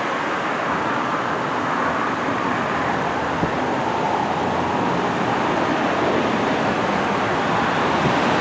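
Steady rushing vehicle noise that slowly grows louder.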